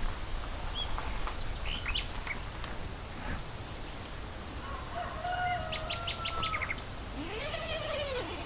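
Wild birds chirping over a steady outdoor background hiss, with a quick run of chirps about six seconds in. Near the end a rooster crows once, rising and then falling in pitch.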